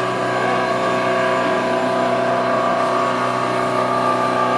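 Boeing 737-200's Pratt & Whitney JT8D jet engines running steadily: a held whine of several steady tones over a rushing roar.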